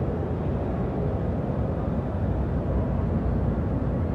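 Steady low rumble of exhibition-hall background noise, with no distinct events in it.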